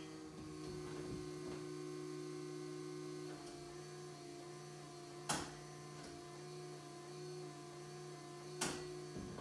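A steady low electrical-sounding hum, broken by two short sharp clicks about three and a half seconds apart.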